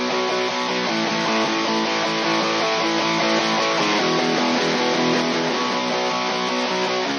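Electric rhythm guitar bus from a rock mix, playing sustained strummed chords that change about every three seconds, heard through the Stam Audio SA4000-5 VCA bus compressor.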